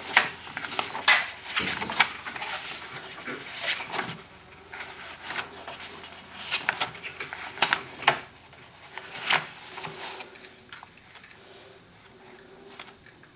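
Paper rustling as the pages of an instruction manual are handled and turned, with scattered light clicks and handling knocks, busiest in the first half and thinning out towards the end.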